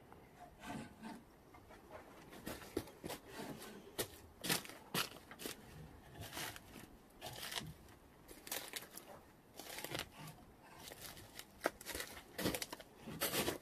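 Wooden sticks strung with eulachon clacking and scraping against each other and the rack pole as they are handled and shifted: irregular light knocks and rustles.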